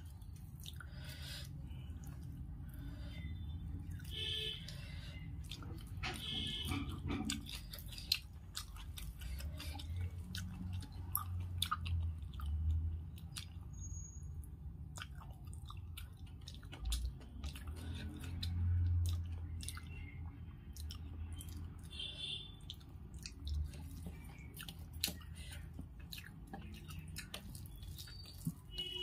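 Close-up chewing and wet mouth clicks of a person eating rice and fried katla fish with her fingers, over a steady low hum.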